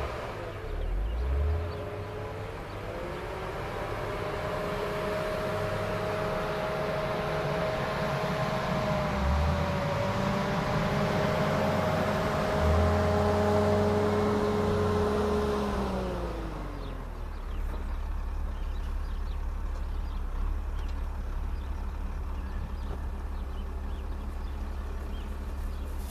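Volvo L60E wheel loader's diesel engine working on a maize silage clamp: it revs up, runs steadily at high revs and grows loudest as the loader comes down off the clamp and passes close by, then winds down and fades about two-thirds of the way through. A low steady rumble remains after it.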